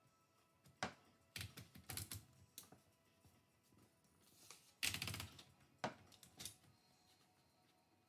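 Manual typewriter being handled at its carriage: scattered faint clicks, with a short run of rapid clicks about five seconds in.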